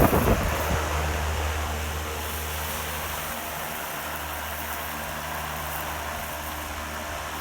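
A steady low hum of a running motor or engine, easing down over the first two seconds and then holding even.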